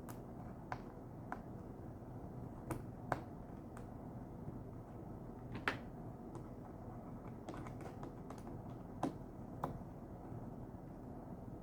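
Sharp clicks and taps, a dozen or so at irregular intervals, from small metal parts and tools being handled while a cable is fitted into its clamp and screw on a Volkswagen fresh air box. A steady low hum runs underneath.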